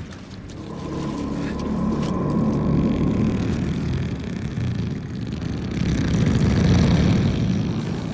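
Film sound effect of a tar pit churning and heaving, a deep rumble that swells twice as a dome of tar rises from the surface.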